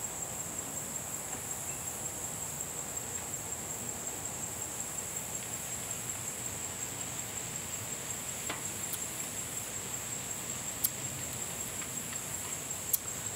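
Insects trilling steadily in one unbroken high-pitched tone, with two brief sharp clicks in the last few seconds.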